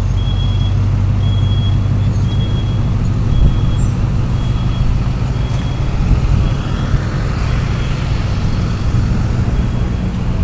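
Idling truck engine: a steady low drone, with a faint high beep repeating about once a second through most of it.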